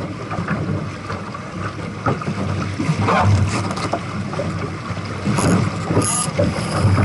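Phantom sailing dinghy under way: wind buffeting the microphone over the rush of water along the hull, with scattered small knocks and a couple of brief hissy bursts about five and six seconds in.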